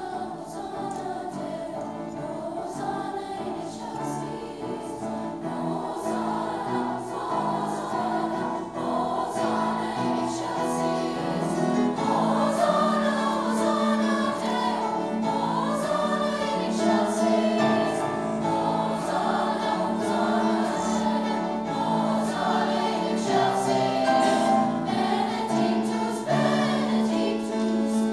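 Youth choir of mixed voices singing with grand piano accompaniment. It builds in volume over the first dozen seconds, then holds strong with a sustained low note underneath.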